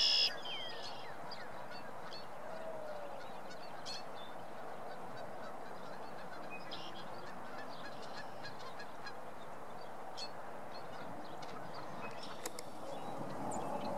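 The end of a loud male red-winged blackbird song right at the start. After it comes a steady outdoor hiss with faint high chips from other birds and a faint low honk a few seconds in.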